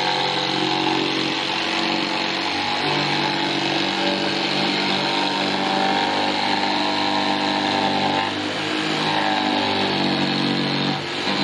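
Electric power saw cutting a curved arch shape out of plywood. The motor runs continuously under load, its pitch shifting as the cut goes, with a brief drop in level near the end.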